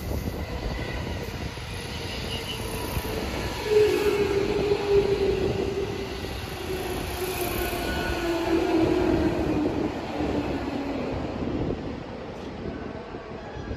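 JR West 221 series electric train running past, its sound rising and then fading as it goes by. In the middle a squealing tone from the wheels sounds for several seconds and slowly falls in pitch.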